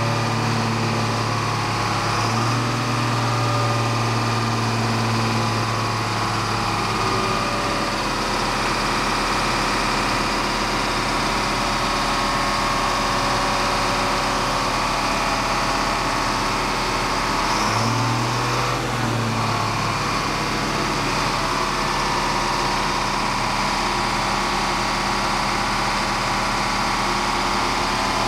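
Diesel engine of a Mercedes-Benz 2423 concrete mixer truck running steadily at idle. Its low hum fades after the first several seconds and swells again briefly about two-thirds of the way through.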